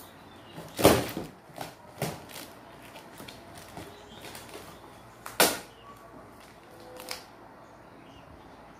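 Packing tape and cardboard being ripped off a large cardboard box: a handful of short, sharp tearing rips, the loudest about a second in and another loud one about five seconds in.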